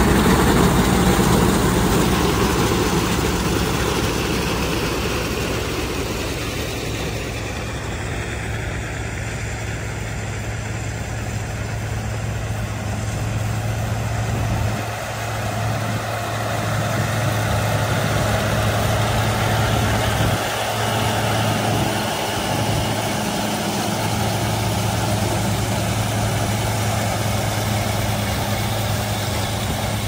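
Old farm tractor engines running steadily under load while powering corn pickers through standing corn, a continuous engine hum over the noise of the picking machinery.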